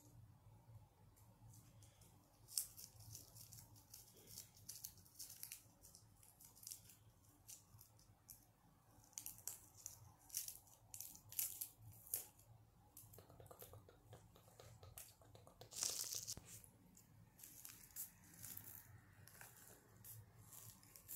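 Close-up ASMR scratching and brushing at the microphone: quiet, irregular, crisp scratchy strokes in short runs, with one longer, louder stroke a little after the middle.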